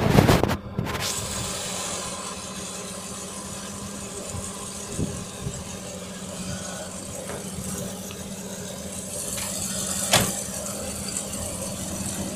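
SK-5 Niva combine harvester's diesel engine and machinery running at a steady pitch as the combine drives across the field. A loud rush of noise sounds right at the start, and a single sharp knock about ten seconds in.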